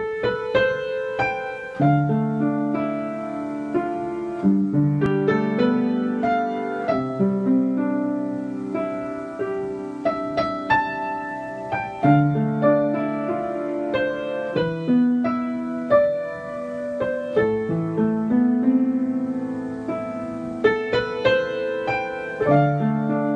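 Background piano music, a gentle melody of struck notes over held chords.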